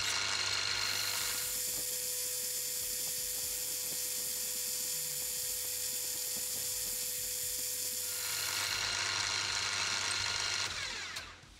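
Milling machine spindle running steadily as a chamfer cutter cuts a lead-in chamfer in the die holder's centre hole. It is a steady machine whine over a hum; the high part drops away for several seconds in the middle and returns, and the sound fades out near the end.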